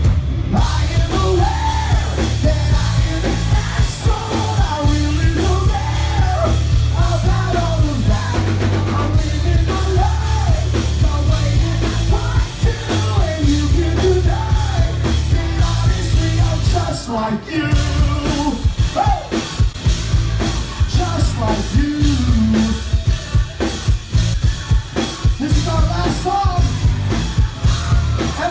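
Live rock band playing loud: drum kit, electric guitars and a heavy bass line under a male lead singer's vocals. The heavy low end drops out briefly a little past the middle, then comes back.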